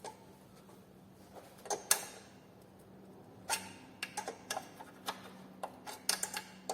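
Irregular sharp metallic clicks and ticks from a hand wrench turning a thread tap through a bolt hole in a Chery QQ's suspension mount, coming in a cluster in the second half, over a faint steady hum.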